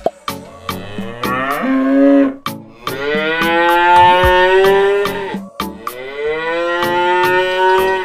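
Cows mooing: three long, drawn-out moos in a row, the first shorter with a rising pitch and the middle one the longest. Regular light clicks tick along underneath.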